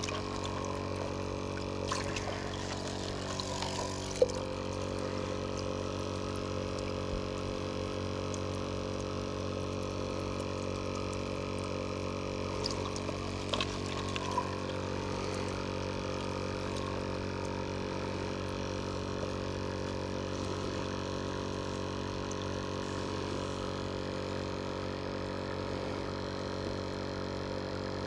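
A steady hum made of many even tones runs throughout, with a few faint clicks of handling near the start and about halfway through.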